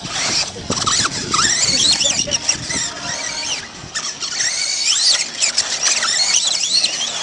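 Electric motors of radio-controlled off-road buggies whining, the pitch rising and falling again and again as the cars accelerate and brake around the track.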